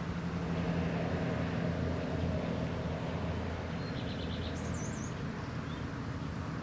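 Steady low drone of a distant engine, with a small bird's brief chirping call about four seconds in.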